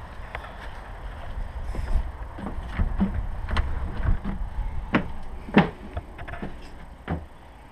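Irregular knocks and clicks of footsteps and a handheld camera rig being handled, over a low rumble of handling noise, as a door handle is worked and the door opened around the middle; the loudest knock comes about five and a half seconds in.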